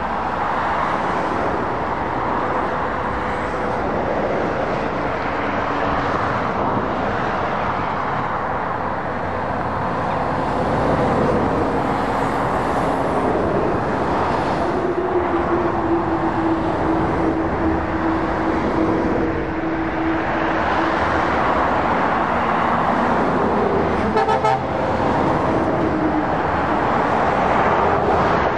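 Lorries and cars passing on a dual carriageway: steady tyre and engine noise. A long held tone from a passing lorry starts about halfway through, and a brief rattle comes near the end.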